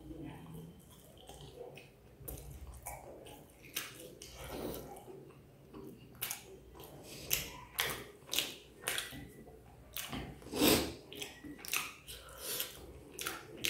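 Close-miked chewing of food with wet mouth smacks and clicks, soft at first, then sharper smacks coming about twice a second through the second half.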